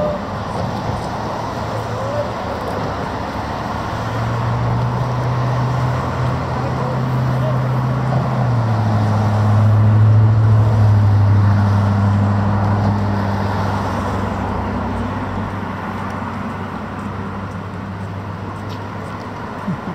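Road traffic passing: a steady rush of tyre and road noise, with one vehicle's low engine hum swelling to its loudest about halfway through, dropping in pitch as it goes by, then fading away.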